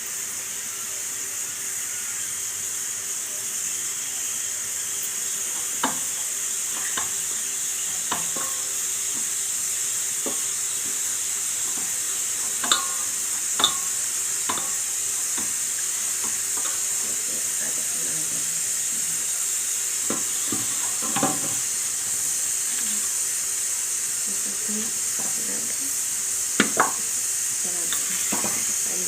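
Steady sizzling of food frying in a pan, with scattered sharp clicks and knocks of utensils against cookware.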